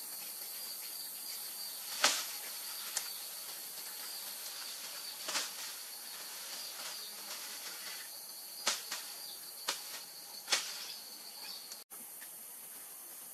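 Steady insect drone with a high hiss, broken by about six short sharp crackles and knocks from dry grass thatch and wooden poles being handled; the loudest comes about two seconds in.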